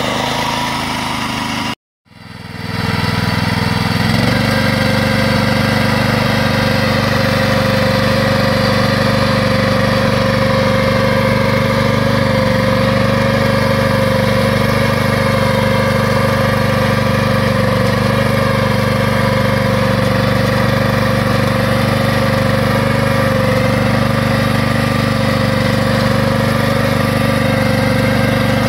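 Engine of a Pasquali two-wheel tractor running steadily under load while driving a rotary plough through the soil. The sound cuts out briefly about two seconds in, then returns and holds steady.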